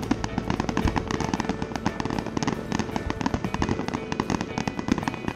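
Fireworks going off in rapid succession: a dense, continuous run of bangs and crackles.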